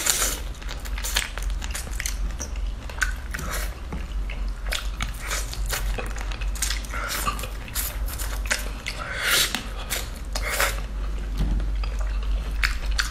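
Close-up eating sounds of raw marinated shrimp being bitten and chewed: many short, sharp crunches and clicks from the shells, over a steady low hum.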